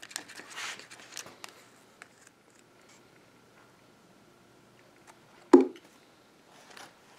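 Wooden stick scraping and stirring epoxy in a small paper cup, in short rustling strokes during the first second or so. About five and a half seconds in comes a single sharp knock, the loudest sound.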